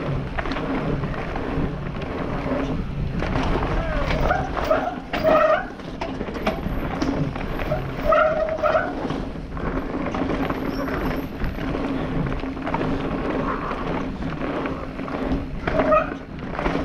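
Mountain bike ridden fast over a dirt trail: tyres on dirt and the bike rattling and knocking over bumps, with wind rushing over the helmet camera's microphone. A few short pitched squeaks come in around the middle and again near the end.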